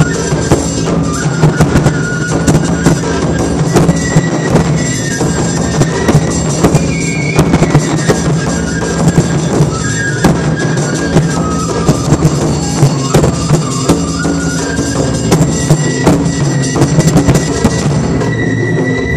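Taiko drum ensemble playing a fast, dense rhythm, the deep strikes of a large odaiko barrel drum under many smaller drums. A high melody of held notes sounds above the drumming.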